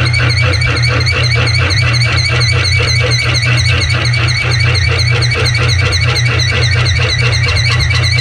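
Milling machine spindle turning a 15/16-inch drill bit at about 210 rpm, cutting a hole in metal: a steady motor hum with a squeal that pulses about three to four times a second.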